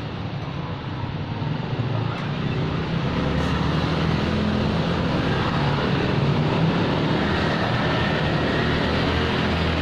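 A motor vehicle's engine running close by with street noise, growing louder about two seconds in and then holding steady.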